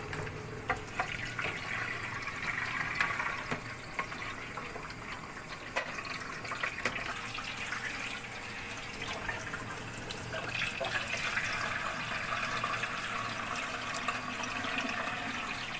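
Kitchen tap running into a plastic water-filter pitcher, a steady splashing hiss as its reservoir is rinsed out, getting a little brighter after about ten seconds. A few light knocks as the pitcher is handled.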